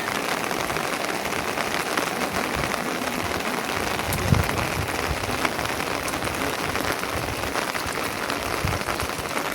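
Steady rain pattering on a surface, a dense even hiss of small drop impacts, with a soft low thump about four seconds in.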